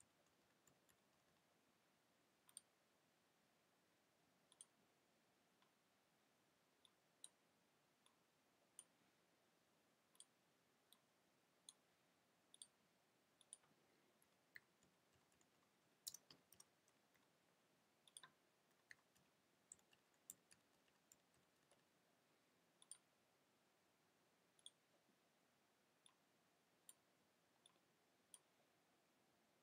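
Faint, irregular clicks of a computer keyboard and mouse over near silence, one every second or so, with the sharpest click about halfway through.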